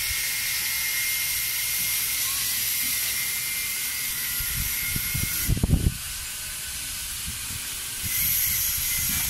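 Steady high-pitched hiss that drops away a little past halfway and returns near the end. Just as it drops, a brief cluster of low knocks and rumble: handling noise close to the microphone as the plastic visor strip is held and moved.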